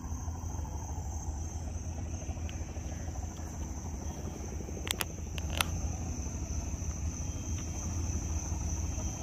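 Steady high-pitched insect chorus, with a low rumble underneath. A few sharp clicks come about halfway through.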